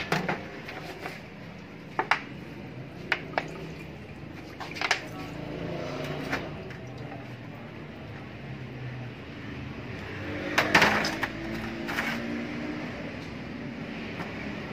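Metal refrigerator compressor parts clinking and knocking on a workbench and against a metal wash pan as they are handled and cleaned. Sharp knocks come every second or two, with a burst of clatter about ten seconds in.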